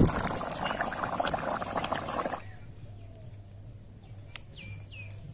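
Open wood fire crackling under a pan of bubbling egg curry: a dense crackle with many sharp pops that cuts off abruptly about two and a half seconds in. Then curry sauce being ladled and dribbling onto rice, much quieter, with two short falling chirps near the end.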